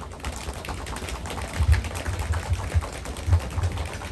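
Audience drumming hands on tabletops in a rapid, ragged drum roll with dull thumps mixed in, the suspense-building roll before an award winner's name is read.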